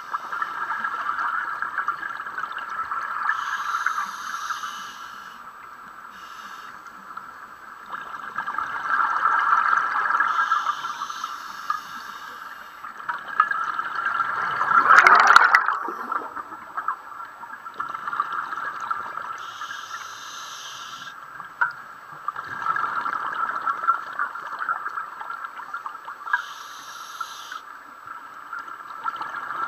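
Scuba breathing heard underwater: short hisses of the regulator on each inhalation every few seconds, and the bubbling of exhaled air, loudest in one surge about halfway through.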